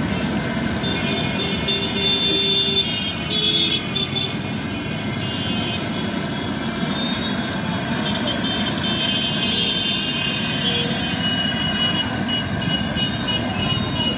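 Oil bubbling and sizzling in a large wok as a batch of garlic fritters deep-fries, over steady street traffic noise. High-pitched tones come and go on top of it.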